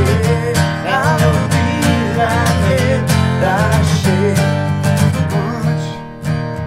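Two acoustic guitars strummed together in a steady rhythm, with a man's voice singing over them through the first part.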